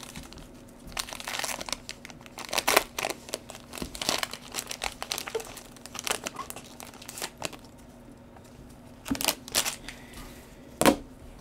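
Foil wrapper of a trading-card pack crinkling and tearing as it is opened and the cards are pulled out, a rapid run of crackles, then two sharper snaps near the end.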